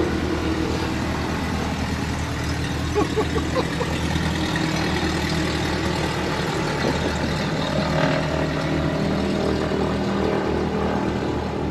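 Twin-engine Beechcraft Duchess taxiing past, its two piston engines and propellers running with a steady drone; the tone shifts slightly about eight seconds in.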